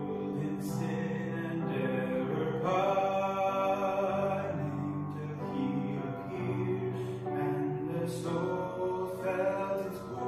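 Slow, chant-like sung music over held low notes, the melody moving every second or so.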